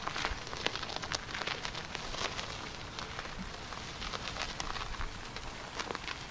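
Irregular crackling and clicking over a steady hiss.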